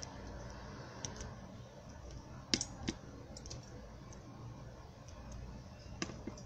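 A quiet room with a faint steady hum and a few scattered sharp clicks; the two loudest clicks come close together about two and a half seconds in.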